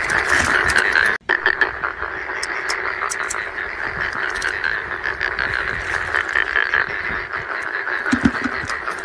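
Dense chorus of frogs calling in a flooded rice field at night, a steady mass of fast-pulsing calls. The sound cuts out completely for a moment about a second in.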